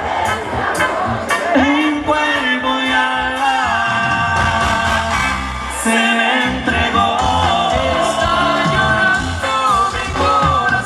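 A live band plays a wordless passage of a song: a melodic lead line over bass and drums.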